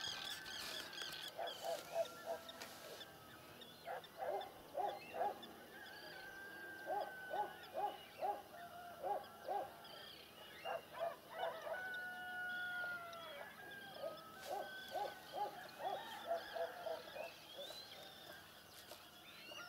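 Wild animals calling: runs of four or five short, low hooting notes at about three a second, repeated every few seconds, with birds chirping and whistling higher above them.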